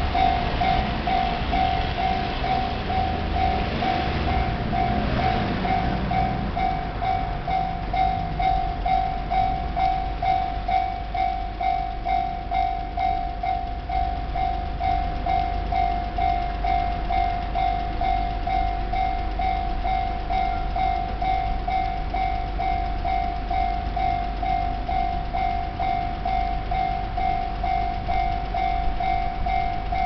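Japanese railway level-crossing alarm ringing: an electronic bell repeating one ding in a steady, quick rhythm, over a low rumble.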